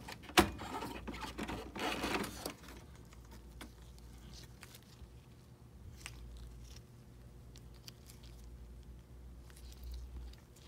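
A sharp plastic click as an ink cartridge is released from a Canon inkjet printer, then about two seconds of scraping and rustling as the cartridge is handled in gloved hands. After that, only faint, scattered ticks.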